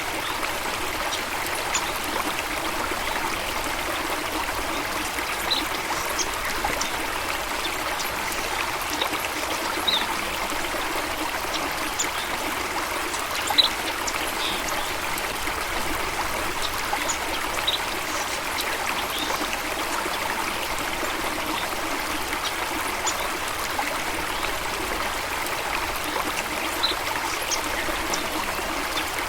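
Steady rush of flowing stream water, even and continuous, with faint short high ticks scattered through it and one louder tick about halfway through.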